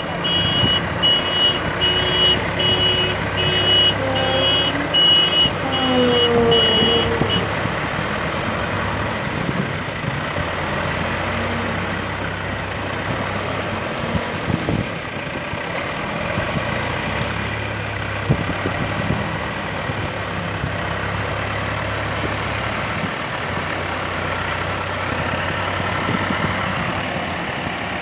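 Escorts backhoe loader's diesel engine running as it works its loader bucket, under a loud continuous high-pitched whine. For about the first seven seconds a beeper sounds roughly twice a second.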